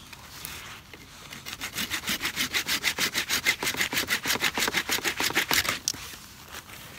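Hand pruning saw cutting through a dead pine branch: a fast run of back-and-forth saw strokes that starts about a second and a half in and stops near six seconds.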